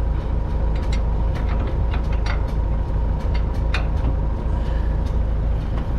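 Farm machinery running steadily: a deep rumble under a constant hum, with scattered clicks and rattles.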